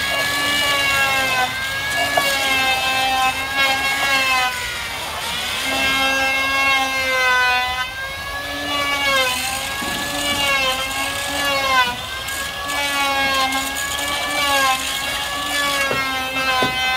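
A power tool's motor whining without a break, its pitch dipping and recovering over and over as the tool is loaded and eased off.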